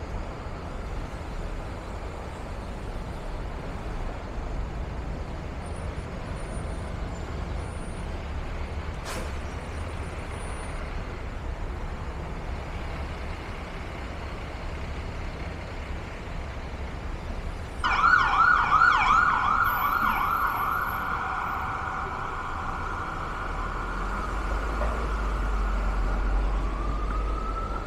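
Street traffic rumble, then about two-thirds of the way in an emergency vehicle siren starts suddenly and loud, warbling rapidly at first, then holding a steady tone, and near the end sweeping slowly up and down in a wail.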